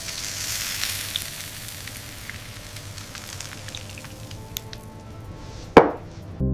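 Sizzling of hot grilled food: a steady crackling hiss dotted with small pops. Near the end comes one loud, quick falling swoosh.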